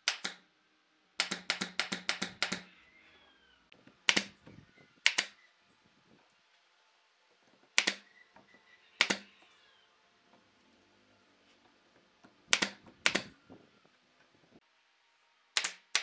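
Pneumatic brad nailer firing brads into thin wooden strips, each shot a sharp snap. There is a quick run of about seven shots about a second in, then single or paired shots every few seconds.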